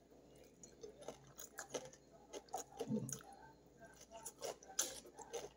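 A person chewing a mouthful of food: faint, irregular soft clicks of the mouth.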